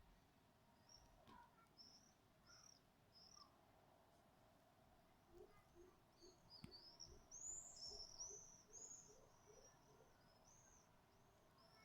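Faint, high-pitched chirping calls, probably from a bird: short notes that rise then fall, repeating about once or twice a second, then coming faster and louder for a few seconds in the middle before easing off again.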